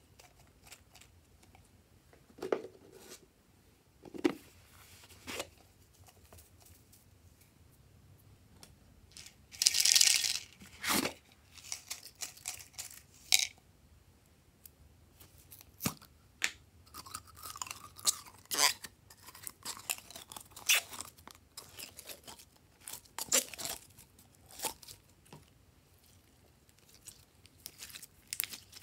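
Hands working slime in a glass tray: scattered clicks and taps of plastic containers, and a hissing rattle of sequins and glitter shaken out about ten seconds in. Crackly, sticky squishing of glossy slime being pressed follows in the second half.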